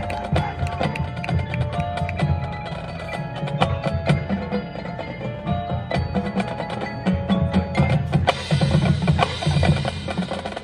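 Marching band percussion playing: front-ensemble mallet keyboards ring held, bell-like notes over dense snare and bass drum strokes. A bright wash over the top joins about eight seconds in.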